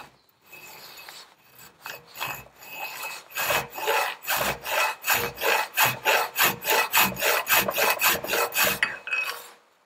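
Half-round metal file rasping back and forth across the edge of a metal washer clamped in a bench vise, cutting a keyway slot. The strokes start light and settle into a quick, even rhythm from about three seconds in, then stop near the end.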